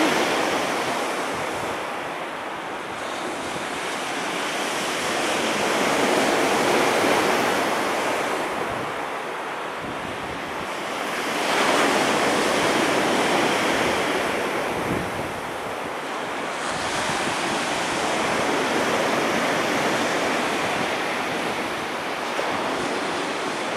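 Surf of a stormy sea breaking on the beach: a continuous rush of water that swells and eases as each big wave comes in, every several seconds.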